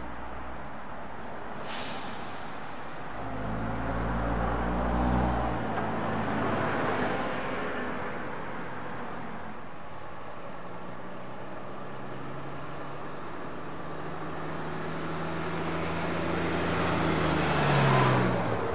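Diesel buses driving past, their engines running. One passes about 4–5 s in, and another grows louder to a peak near the end. A short burst of air hiss, like an air brake, comes about two seconds in.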